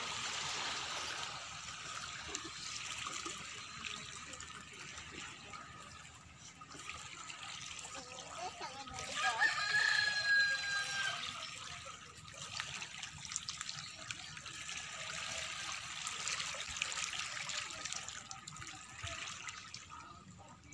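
Water running and trickling steadily, with a rooster crowing once about nine seconds in.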